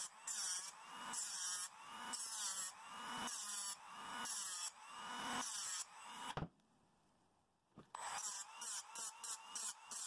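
Hand-held tool scraping the chrome finish off a small diecast car body in repeated strokes, about one a second. The strokes break off briefly a little past halfway, then resume shorter and quicker.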